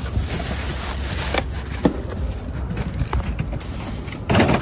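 Steady low outdoor rumble with a few light knocks, and a louder, brief rush of noise about four seconds in.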